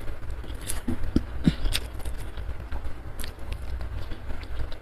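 A person chewing food close to the microphone: irregular wet mouth clicks and short crunches.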